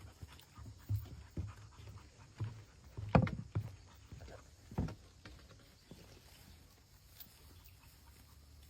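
A dog panting over a steady low rumble, with a few irregular low thumps in the first half, the loudest about three seconds in.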